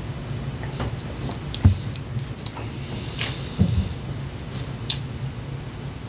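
Someone tasting a drink: low swallowing thumps about one and a half and three and a half seconds in, small clicks, and a sharp tap about five seconds in. A steady low hum runs underneath.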